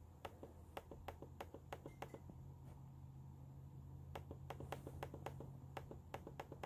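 Light, irregular clicks, a few a second, from a computer mouse's scroll wheel as a web page is scrolled, over a faint steady low hum.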